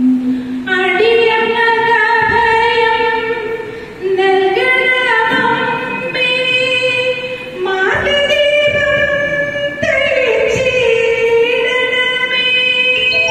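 A woman singing solo and unaccompanied, holding long, steady notes in phrases a few seconds long with short breaks for breath between them.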